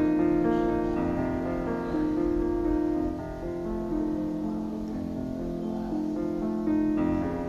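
Soft background piano music, slow held notes.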